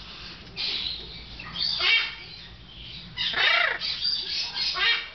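Hyacinth macaw calling, about four short squawks; the loudest, a little past halfway, rises and falls in pitch.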